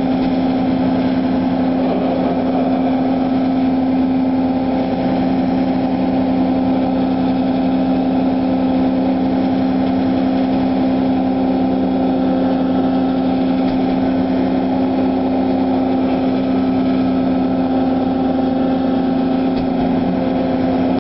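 A vessel's engine running steadily and loudly: a constant low hum that holds the same pitch and level throughout.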